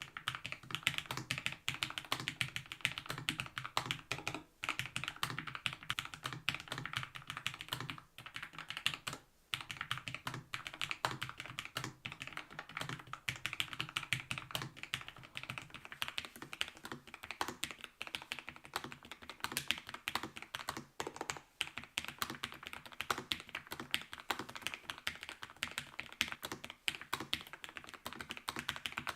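Fast, continuous typing on a Lofree Flow low-profile mechanical keyboard: a dense run of keystrokes with brief pauses about four and nine seconds in.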